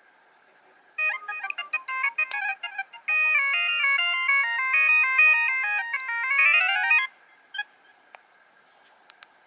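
Nokia 3100 mobile phone playing one of its built-in ringtones through its small loudspeaker. A chiming melody of quick short notes runs for about two seconds, then turns into held chords with a rising run of notes, and stops suddenly about seven seconds in.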